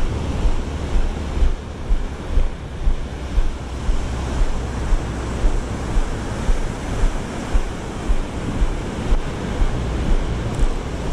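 Ocean surf washing onto the beach with wind buffeting the microphone, and regular low thuds a little under twice a second.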